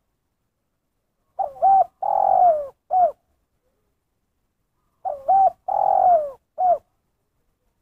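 Spotted dove (terkukur) cooing: two identical call phrases about three and a half seconds apart. Each is a short two-part coo, a longer falling coo, then a single short closing note, the 'kuk satu' ending.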